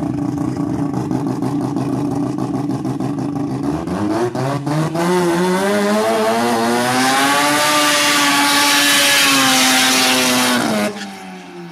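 Drag race car engine idling, then revving up over a few seconds into a burnout. The engine is held at high revs for about three seconds while the spinning rear tyres hiss loudly, then it cuts off suddenly and drops back near the end.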